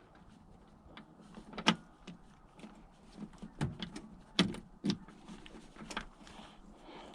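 Scattered sharp clicks and knocks of handling, about five of them louder than the rest, over a faint steady hiss.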